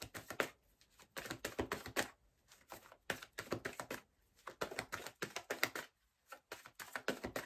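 Tarot cards being handled: clusters of quick papery clicks and taps, with short gaps between them.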